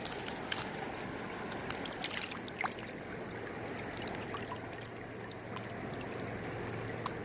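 Shallow river running over a stony bed, with scattered small splashes and drips as a wet rock is lifted out of the water by hand.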